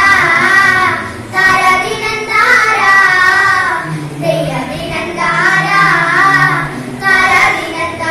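A group of schoolgirls singing a song together into handheld microphones, in phrases of a second or so with short breaks between.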